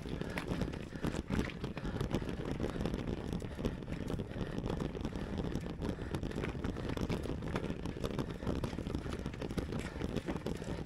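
A mountain bike being ridden over a rocky climb: a steady low rumble of tyres and wind on the microphone, with frequent small knocks and rattles from the bike on the rough ground.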